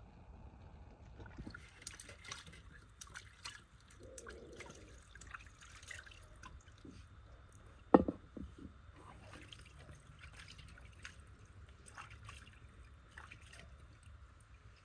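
Water dripping and splashing in a metal basin as boiled beef legs are lifted and rinsed by hand, with scattered light knocks and one sharp knock about eight seconds in.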